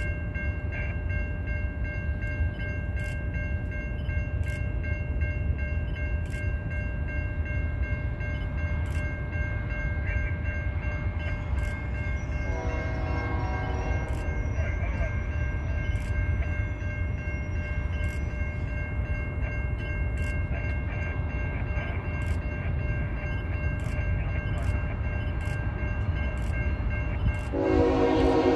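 CN freight trains' diesel locomotives and cars rolling with a steady low rumble. A locomotive horn sounds softly for about two seconds midway, and a loud horn blast starts near the end.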